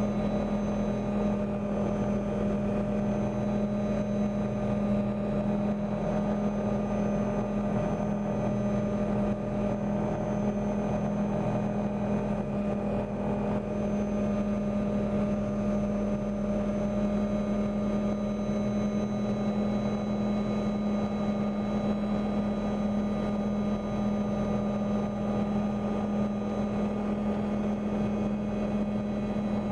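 Helicopter in flight heard from inside the cabin: a steady drone of engine and rotors with a strong low hum, unchanging throughout.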